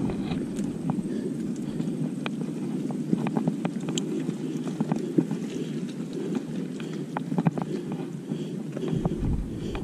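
Mountain bike riding over a rough dirt trail: a steady rumble of tyres and wind on the microphone, with many scattered clicks and rattles from the bike.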